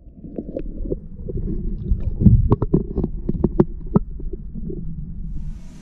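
Muffled low bumping and rumbling with a run of sharp knocks and clicks in the middle: close handling noise against a plastic fishing kayak.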